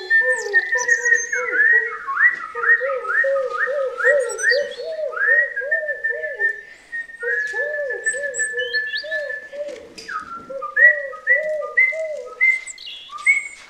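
Bird calls imitated by whistling, several at once: a high note held and then swooping up again and again, over a lower call that rises and falls about three times a second.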